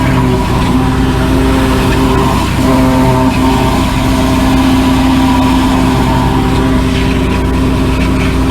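High-pressure drain-jetting machine's engine and pump running steadily while flushing a root-blocked pipe.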